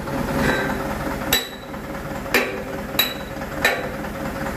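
A hammer striking metal four times, about a second or less apart, each blow ringing briefly. A steady engine hum runs underneath.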